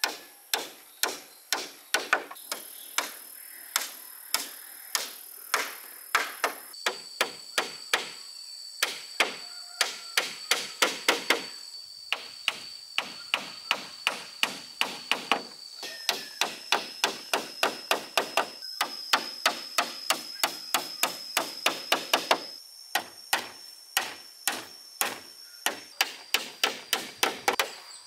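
Hammer driving nails into split bamboo slats: quick runs of sharp blows, about three a second, with short pauses between nails.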